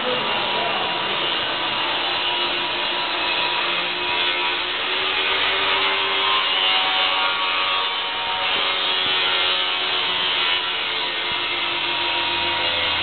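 Offset printing press running steadily: a dense, even mechanical whir with a few steady hum tones.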